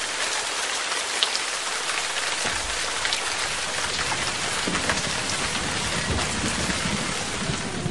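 Heavy rain, a steady hiss with scattered ticking drops; a low rumble, like distant thunder, comes in about two and a half seconds in.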